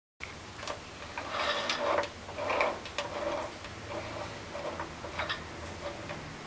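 Light mechanical clicks and rustling as the handwheel of a small plastic desktop sewing machine is turned by hand with the thread held, with two louder rustles about one and a half and two and a half seconds in.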